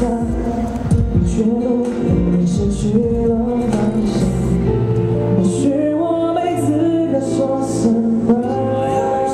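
Male pop singer singing live into a handheld microphone over a band accompaniment with drums and cymbals.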